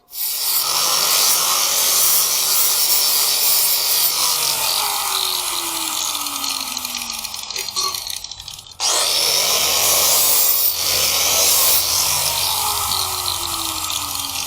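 Angle grinder grinding the edge of a steel lawn mower blade, a loud, continuous grinding hiss. It dies away briefly a little past halfway, then starts again.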